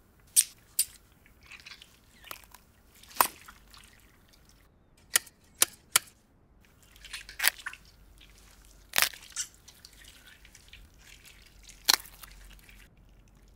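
Garden shears and loppers snipping: sharp metallic clicks at uneven intervals as the blades close, with wet crunching and squishing as they cut through a beluga sturgeon's gills.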